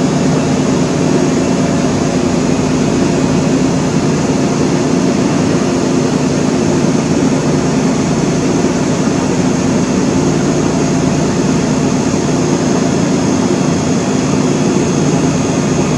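Steady rushing noise with a faint constant hum, unchanging throughout.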